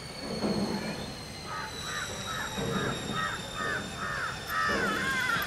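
A bird calling in a quick run of short, harsh notes, about three a second, beginning a second and a half in and running into longer, wavering calls near the end.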